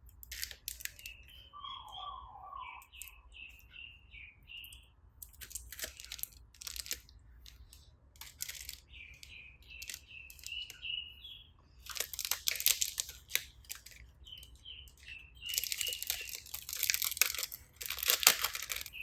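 Slime being squeezed and kneaded, giving bursts of sticky crackling and popping every few seconds, loudest near the end. A bird chirps repeatedly in short runs between the bursts.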